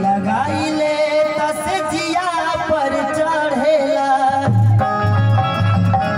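A male singer singing a Bhojpuri folk song through a microphone and PA speaker, over keyboard accompaniment with held notes. A low, even beat comes in about four seconds in.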